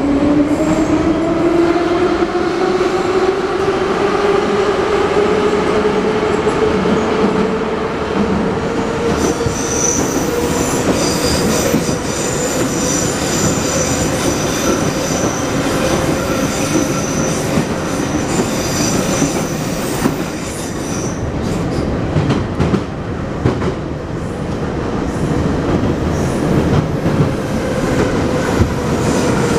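Heard from inside a 81-717.5 metro car running through a tunnel. The traction motors' whine rises as the train picks up speed, then holds steady at speed over the running noise of wheels on rails. A thin high squeal comes in from about nine to twenty seconds, and toward the end there are scattered clicks from the track.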